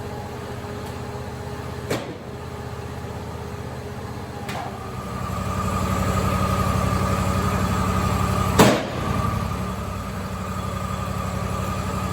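Steady machinery hum; a little under five seconds in, the 2-horsepower cyclone dust-collection vacuum comes on, getting louder and settling into a steady running whine. Light knocks early on and a sharper knock about three seconds after it starts.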